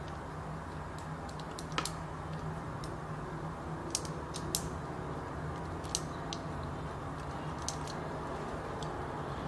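A steady low hum with a handful of short, sharp light clicks scattered through it, the loudest about halfway.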